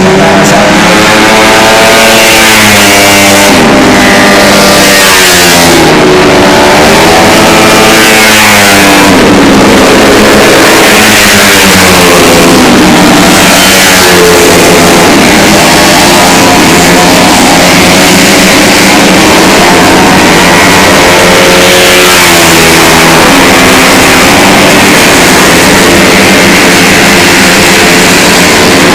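Tuned 130 cc automatic scooter engine being revved up and down again and again, its pitch rising and falling every second or two.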